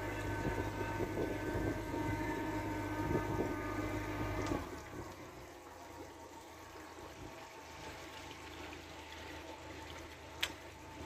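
50 hp Mercury outboard motor idling steadily, then shut off abruptly about four and a half seconds in, leaving soft water sounds and a single sharp click near the end.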